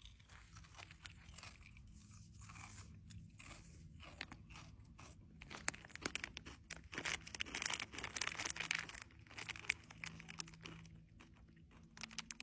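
Close-up crunching and chewing of candy-shelled Reese's Pieces, with the plastic candy packet crinkling in the hands. The crackles come thickest and loudest through the middle.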